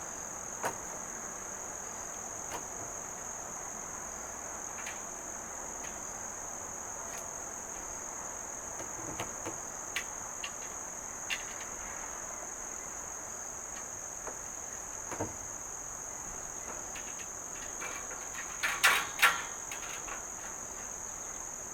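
Bolts being fitted by hand into the panels of a galvanized steel raised garden bed: scattered light metal clicks and taps, with a quick cluster of louder clacks about nineteen seconds in. Underneath, a steady high-pitched cricket chorus.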